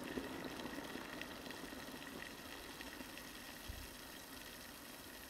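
Water bubbling in a stainless steel saucepan: a dense fizzing with scattered small pops, slowly growing quieter.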